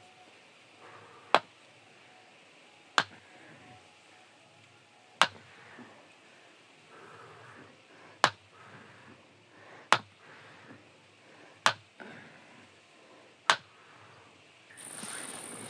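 Seven sharp strikes of a long-handled hand tool driven down at the base of a wooden fence post, irregularly spaced one every two seconds or so. Near the end a steady hiss comes in.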